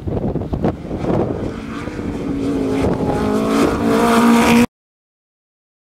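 Rally car engine at high revs on a loose dirt stage, the note climbing and getting louder over the last couple of seconds, then the sound cuts off abruptly.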